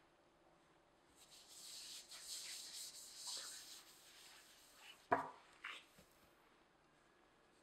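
A soft, dry rustle as tapioca starch is sprinkled and spread by a gloved hand over a silicone pastry mat. About five seconds in comes a dull thump as the ball of gluten-free dough is put down on the mat, with a lighter knock just after.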